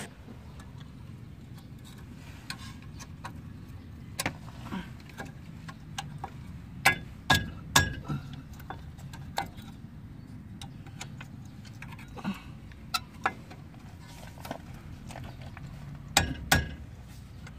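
Scattered metallic clicks and clinks of brake pads, caliper and small fittings being handled and fitted on a disc brake, with a cluster of sharper knocks about seven to eight seconds in and again near the end.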